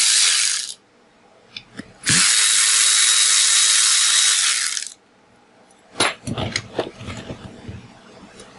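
Cordless power ratchet running in two bursts with a steady whine, a short one and then one of about three seconds, backing out the bolts of a mower engine's flywheel brake bracket. From about six seconds in, metal hand tools clink and clatter as they are handled.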